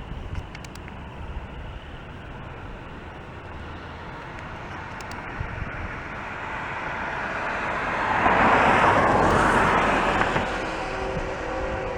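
A road vehicle passing close by: a rush of tyre and engine noise that swells to a peak about nine seconds in, then fades. Near the end a faint steady chord of several tones comes in.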